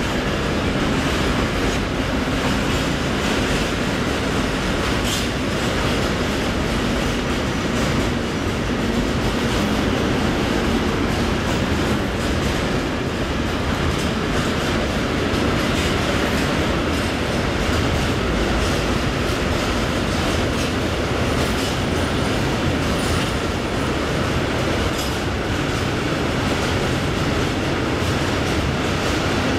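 Freight train of tank wagons rolling steadily past, a continuous rumble of steel wheels on rail with occasional sharp clicks over rail joints. About two-thirds through, a faint high wheel squeal is heard briefly.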